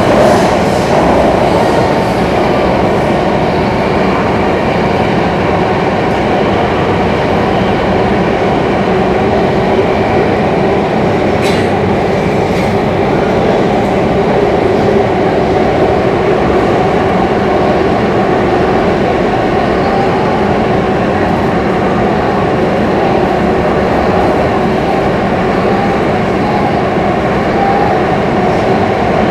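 Interior noise of a Singapore MRT North East Line electric train running steadily at speed through an underground tunnel, heard from inside the carriage at the doors. There is one brief click about a third of the way through.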